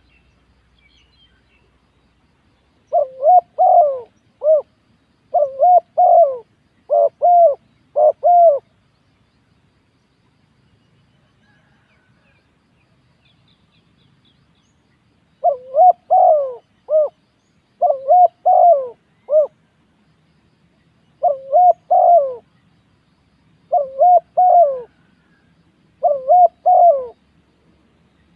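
Spotted dove cooing in repeated phrases: one bout about three seconds in lasting some five seconds, then a longer run of phrases from about halfway through until near the end.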